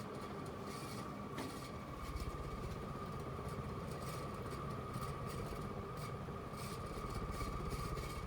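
SMC-made Hampton Bay Landmark (DC-42) ceiling fan running steadily: a constant high hum over a low, fluttering rumble, with faint scattered ticks.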